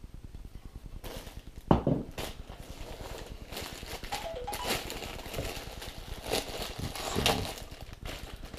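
Thin plastic bag crinkling and rustling in irregular bursts as hands unwrap a small packed item, starting about a second in, with one sharp knock a little later.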